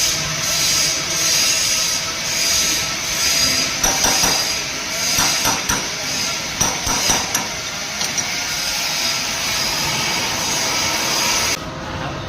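Lathe running with a steady hiss and several whining tones. A few sharp metallic knocks and clinks come in the middle, and the high hiss cuts off suddenly near the end.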